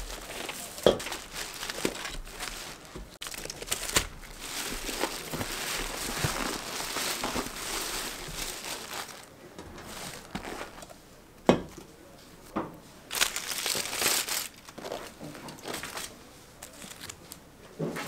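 Plastic carrier bags and plastic wrapping crinkling and rustling as takeaway food is unpacked onto a table, with several sharp knocks as containers and a can are set down.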